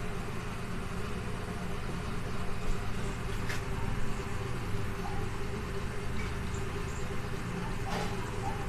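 Steady low engine-like hum in the background, with a few faint short squeaks and scratches from a marker writing on a whiteboard.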